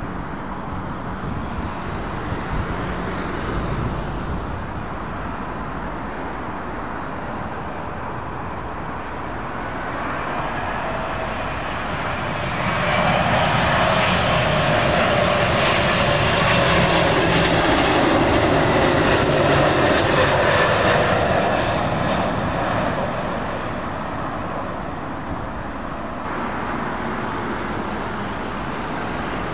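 British Airways Boeing 777-200 landing low overhead, its twin jet engines growing louder to a peak about halfway through, then fading as it passes. During the peak there is a jet whine that drops in pitch as the aircraft passes.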